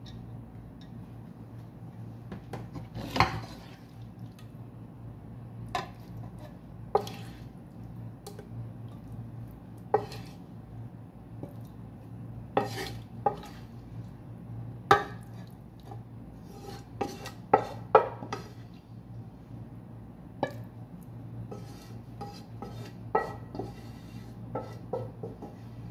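A serving utensil clinking and knocking against the rim of a metal cooking pot as spiced meat is spooned onto parboiled rice, in irregular clinks a second or several apart, with a bunch of them in quick succession about two-thirds through. A steady low hum runs underneath.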